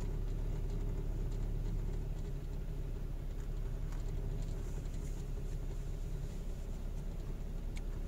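Car driving slowly through city traffic: a steady low hum of engine and road noise, with one short click near the end.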